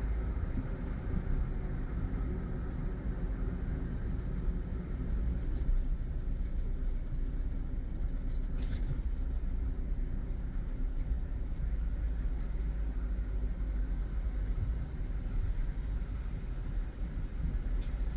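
Car driving steadily in traffic: a continuous low rumble of engine and road noise.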